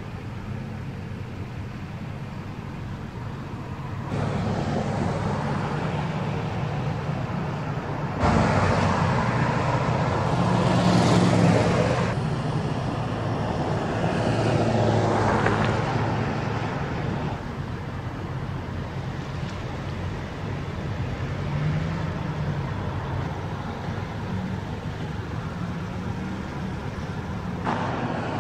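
Road traffic: pickup trucks towing trailers go by at low speed, engines humming low over tyre and road noise. The sound grows louder with a couple of closer passes in the middle, then eases off.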